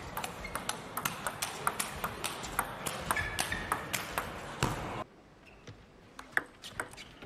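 Table tennis rally: the ball clicking sharply off the bats and the table, about three ticks a second, over low hall noise. About five seconds in, the sound drops abruptly to a quieter background with a few fainter ball ticks as another rally starts.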